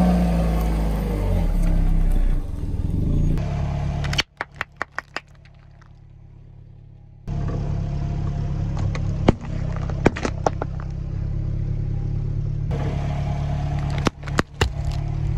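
A car tyre rolling slowly over small objects on asphalt and crushing them: plastic tape rolls, a beer can and fruit pouches. A low rumble from the car and tyre is broken by sharp cracks, clatters and crunches, in several short clips cut together.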